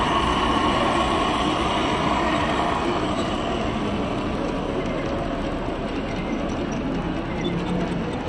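Model trains running on an operating show layout: a steady, dense running noise that holds level throughout, with a faint low steady tone joining near the end.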